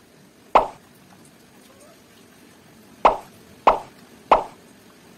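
Short, sharp plop sounds, four times: one early, then three in about a second and a half, the last two about half a second apart.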